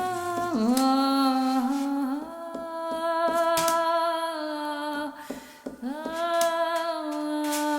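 A voice singing wordless long held notes, sliding down into the first and swooping up into the later ones, with a short break a little past the middle. Sharp clicks sound now and then, loudest near the end.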